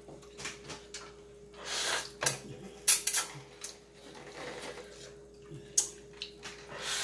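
A person slurping and sucking up spicy instant noodles straight off a metal baking sheet with the mouth, no hands, in several short irregular bursts. A faint steady hum runs underneath.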